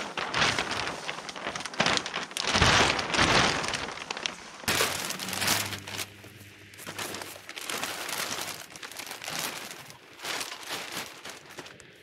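Clear plastic sheeting rustling and crinkling as it is shaken out and pulled over a machine, loudest a few seconds in, then in shorter, lighter rustles.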